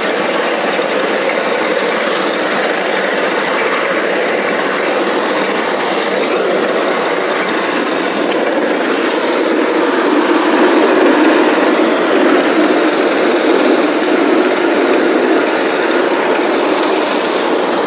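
Kisan Kraft SPR-1205P walk-behind paddy reaper with a 4.5 HP petrol engine running at full throttle while its cutter bar cuts standing rice. A steady engine noise that swells a little about ten seconds in.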